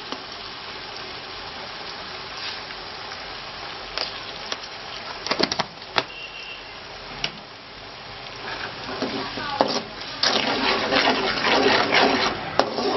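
Hot oil sizzling in an aluminium kadai with a tempering of curry leaves and dried red chillies, a steel perforated ladle clinking against the pan a few times around the middle. Near the end the sizzling turns loud and crackly as liquid goes into the hot oil.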